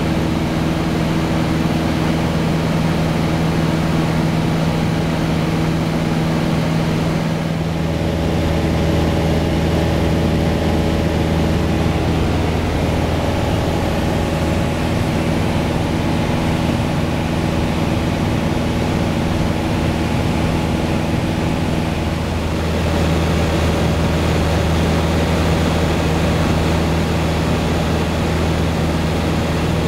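Cabin drone of a Piper Arrow's single piston engine and propeller in flight: a loud, steady hum that shifts slightly in tone a couple of times.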